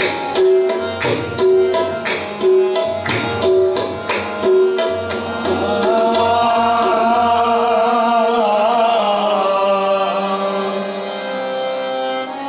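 Qawwali music intro: tabla beating a steady rhythm under sustained melodic tones. About halfway in the drumming stops and a long, wavering melodic line is held on its own.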